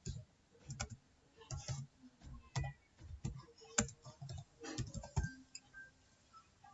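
Computer keyboard being typed on: a run of irregular keystrokes, faint and clicky, that thins out and stops a little after five seconds in.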